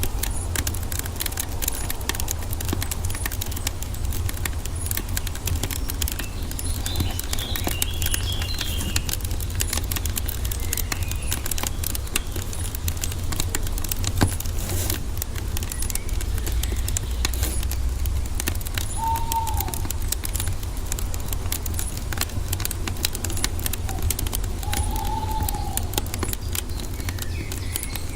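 Wood fire crackling with a constant run of small pops over a low steady rumble. Forest birds call now and then over it: a short twitter about eight seconds in and a few brief whistled notes in the second half.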